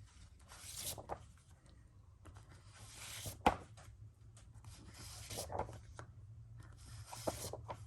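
Comic books being handled and sorted by hand: soft rustling and sliding of paper and covers, with a sharp tap about three and a half seconds in, over a low steady hum.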